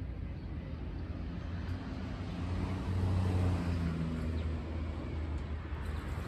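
Low engine hum of a passing motor vehicle, swelling about three seconds in and easing off again, over light outdoor background noise.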